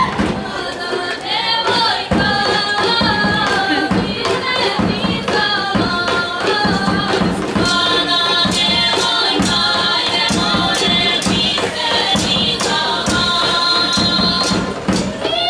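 Women's voices singing a Serbian folk song together over a steady beat on a large double-headed drum, about two beats a second, with tambourine jingles joining in about halfway through.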